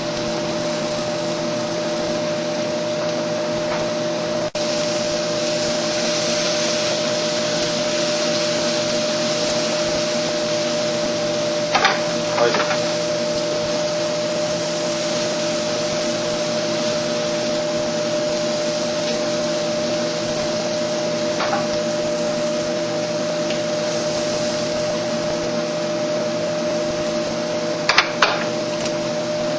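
Steady motor whir with a low hum, broken by a few short sharp clicks, a pair about twelve seconds in and another pair near the end.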